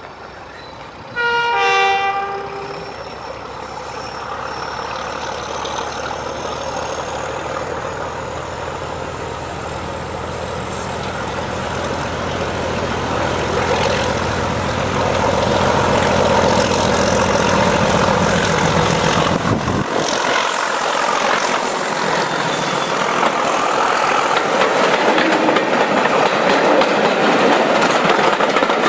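A diesel locomotive sounds its horn briefly about a second in, then its engine grows louder as it approaches and passes close by. About twenty seconds in the engine's low rumble drops away suddenly, leaving the louder rolling clatter of the passenger coaches' wheels on the rails going past.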